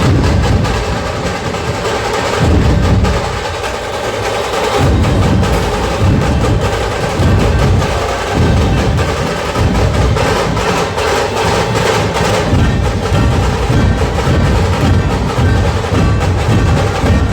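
Loud processional drum music: large drums beating in heavy, uneven pulses under a busy layer of smaller percussion and sustained pitched instruments, without a break.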